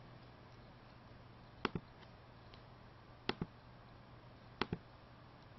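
Computer mouse buttons clicking three times, each a quick pair of sharp clicks, over a faint steady hum.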